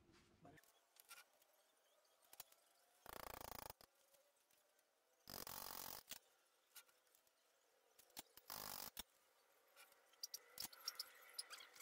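Faint workshop handling sounds: three short scraping strokes, each well under a second, with scattered small clicks and taps between them and more clicks near the end.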